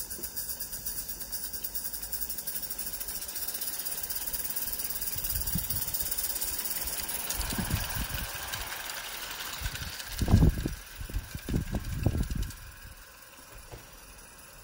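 Accucraft Victory live-steam tank locomotive in 1/32 scale running under load, a steady hiss of steam with a rapid, fast-pulsing exhaust beat. A few low thumps come about ten to twelve seconds in, and the sound then drops away as the train runs off.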